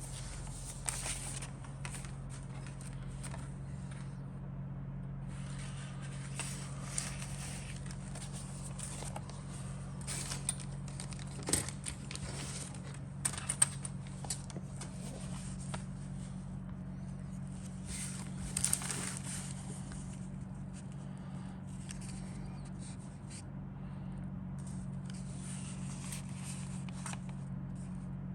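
Plastic kit parts, bags and paper being handled and turned over: scattered rustling and crackling with a few sharp clicks and taps, the loudest around the middle, over a steady low hum.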